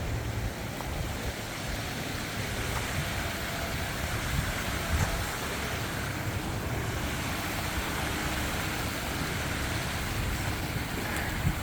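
Steady rush of storm-swollen creek water running high after heavy rain, with a fluttering low rumble of wind on the microphone.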